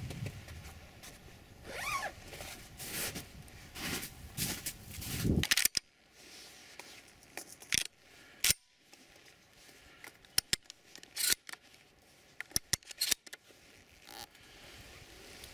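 Rustling of clothing and gear, then a string of sharp metallic clicks and snaps from a semi-automatic shotgun being loaded and its action worked by hand.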